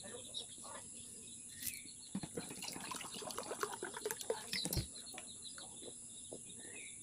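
Water poured from a jug into a mug, a couple of seconds of gurgling ending in a knock as the jug is set down. A steady high insect drone and occasional bird chirps sound behind it.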